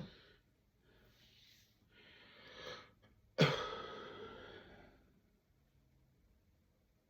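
A person's breath drawn in, then one loud, sudden hiccup about three and a half seconds in, its tail fading over about a second and a half.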